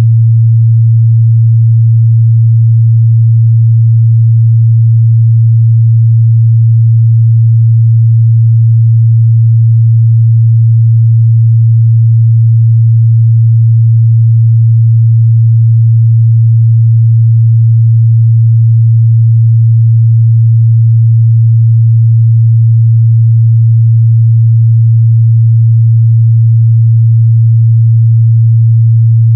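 A steady, unbroken 114 Hz sine-wave test tone, a single low hum held at constant loudness.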